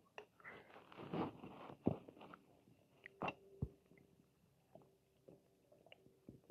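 Human stomach gurgling: a run of soft, squelchy gurgles over the first two seconds or so, then a few short pops separated by quiet gaps.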